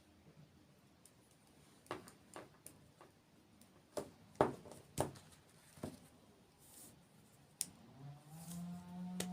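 Close-miked eating sounds: a string of sharp bites, crunches and mouth clicks, several close together in the middle. Near the end a low steady hum begins and holds.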